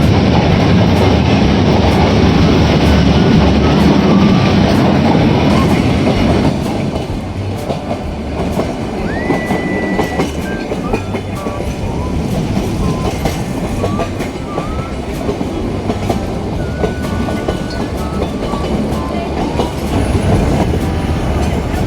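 Narrow-gauge rack-railway train running on the rails, heard from aboard: a steady rumble with clicks over the rail joints. Short high wheel squeals come and go, with one longer squeal about nine seconds in. The overall level drops slightly about six seconds in.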